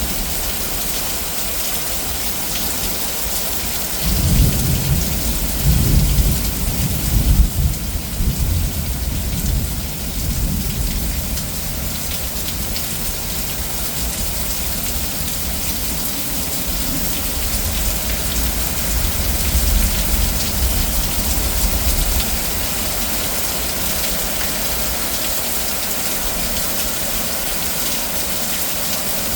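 Heavy rain falling steadily, with a rolling rumble of thunder starting about four seconds in and lasting several seconds, then a fainter rumble later on.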